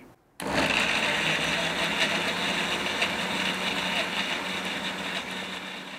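Electric mixer-grinder running with its steel jar, grinding chopped tomatoes and green chillies into a fine paste. It starts suddenly about half a second in and then runs as a steady, even motor noise with a low hum.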